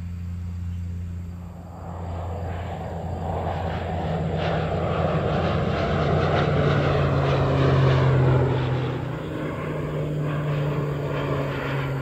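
Crop-duster airplane making a low pass, its propeller engine droning louder as it approaches. The drone peaks about two-thirds of the way through, then eases off a little and drops slightly in pitch as the plane goes by.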